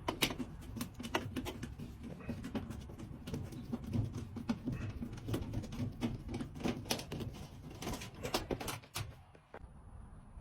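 Irregular clicks, scrapes and knocks of a Phillips screwdriver backing screws out of a washing machine's panel and the parts being handled, over a low steady rumble.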